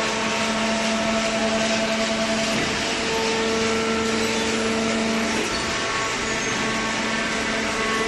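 Horizontal hydraulic baling press running: a steady, loud industrial machine noise with a hum whose pitch shifts a couple of times.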